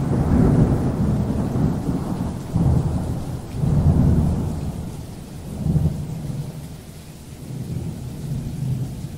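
Thunder rumbling in repeated low swells over the steady hiss of rain.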